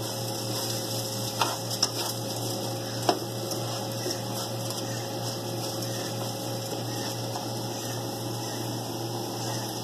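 Red lentils, carrot and onion sizzling steadily in olive oil in a nonstick frying pan as they are stirred, with a few short taps or scrapes of the utensil against the pan in the first three seconds.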